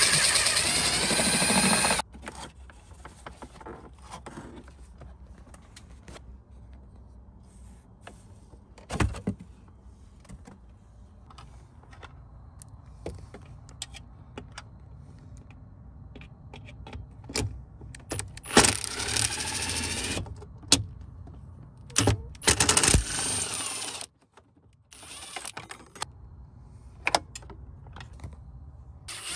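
Small electric screwdriver running in short bursts as it backs out dashboard trim screws. It runs at the start and twice more about two-thirds of the way through, with clicks and rattles of screws and plastic parts being handled in between.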